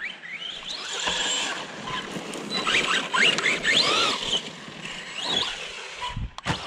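Arrma Big Rock RC monster truck being driven hard: its electric motor and drivetrain whine, rising and falling over and over with the throttle, over a rough hiss. A couple of sharp thumps come near the end.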